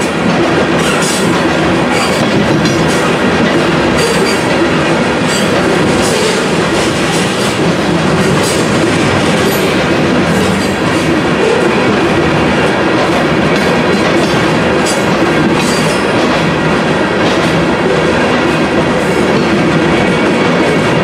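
Union Pacific freight train of aggregate hopper cars rolling past: a loud, steady rumble with the wheels clacking over the rail joints.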